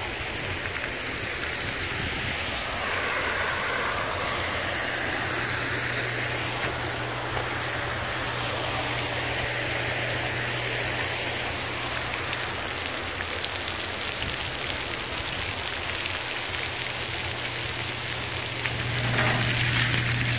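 Splash pad fountains running: water jets spraying from floor nozzles and arches and splashing onto the wet play surface, a steady hiss of falling water. A low steady hum comes in about four seconds in.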